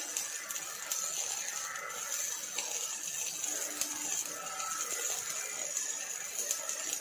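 Arc welding by an OTC robotic welding torch on steel: a steady crackling sizzle from the arc, thick with fine rapid pops.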